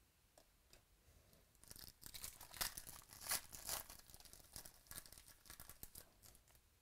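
Foil wrapper of a 2017 Donruss Optic baseball card pack being torn open and crinkled by hand as the cards are slid out. It is a faint, quick run of sharp rustles that starts a little under two seconds in and eases off near the end.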